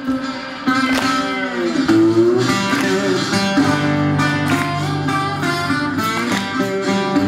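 Slide blues played on a metal-bodied resonator guitar: plucked notes that slide and glide in pitch under a slide on the strings, over sustained low notes that come in about two seconds in.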